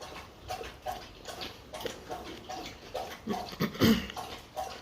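Close-up chewing of kimchi: wet, crunchy mouth sounds repeating every fraction of a second, with a short louder hum-like sound near the end.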